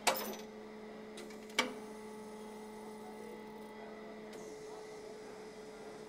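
Factory stamping machine giving two sharp metallic clanks about a second and a half apart, the first ringing on briefly, over a steady machine hum that cuts off about four seconds in.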